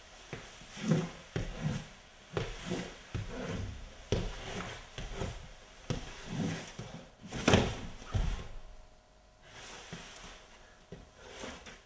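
A dancer rolling and sliding across a paper-covered floor: irregular scuffs, rubs and soft thumps of his body and of his lead-fitted gloves and shoes dragging on the paper as they draw lines, the loudest knock about seven and a half seconds in.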